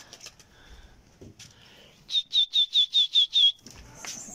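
A person whistling a quick run of seven short, high, sharp notes, about five a second, each ending in a slight downward flick: the kind of whistle pigeon fliers use to call and drive their flock.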